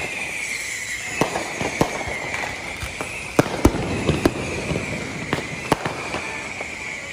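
Consumer fireworks going off in quick, irregular succession: sharp bangs and cracks of bursting rockets and firecrackers, thickest about three to four seconds in. A steady high-pitched whine runs beneath them.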